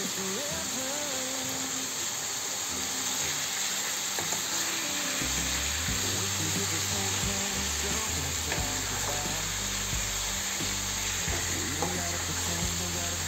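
Diced chicken sizzling as it fries with spices in a nonstick pan, stirred with a wooden spatula, with a few light scrapes and taps of the spatula against the pan.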